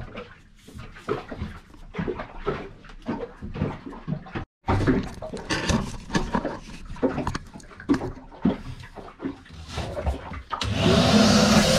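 Scattered knocks and rattles of gear being handled in a cramped compartment, then, about a second before the end, a handheld Kärcher wet/dry vacuum switches on and runs with a steady whining hiss.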